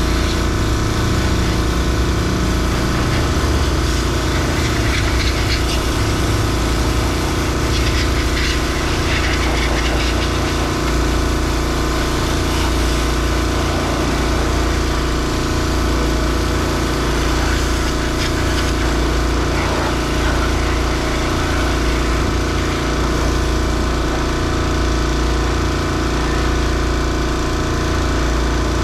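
An engine running steadily at one constant speed, an unbroken mechanical hum with a low rumble.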